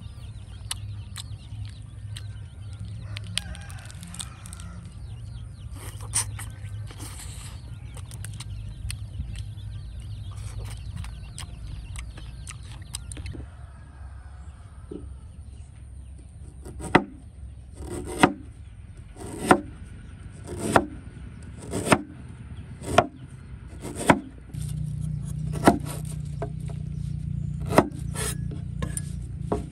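Chickens clucking in the first dozen seconds, then a blade chopping with steady, sharp strokes about every second and a quarter, nine chops in all.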